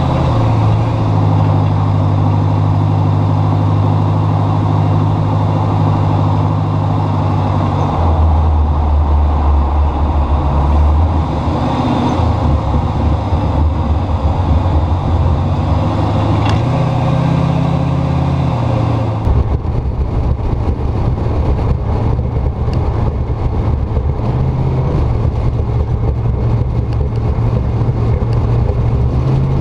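Engine and exhaust of a 1956 Chevrolet pickup running under way, its low note rising and falling with the throttle, heard from a camera mounted on the outside of the truck with road and wind noise. The sound changes abruptly about two-thirds of the way through, where the view switches from the front of the truck to its side.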